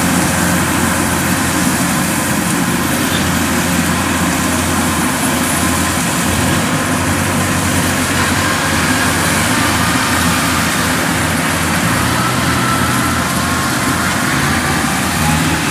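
Kubota rice combine harvesters working under load, their diesel engines and threshing gear running with a loud, steady drone and mechanical clatter as they cut and thresh standing rice.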